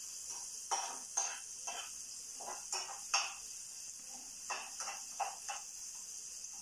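A cooking utensil scraping and knocking irregularly against a frying pan as vegetables are stirred, over a steady high hiss of frying.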